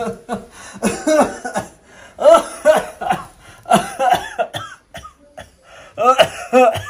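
A person coughing repeatedly in short fits, with brief pauses between them.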